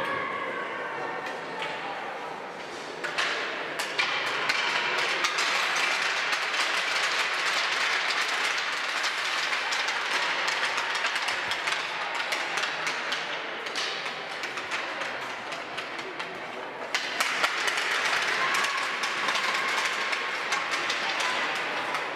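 Clapping and clattering in an ice hockey rink, applause mixed with sticks tapping on the ice. It comes in two long spells with a lull about two-thirds of the way through.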